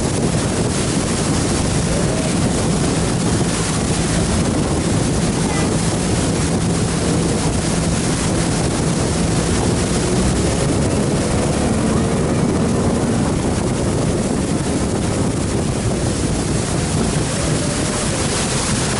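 90-horsepower outboard motor running steadily at speed, with water rushing past the hull and wind buffeting the microphone.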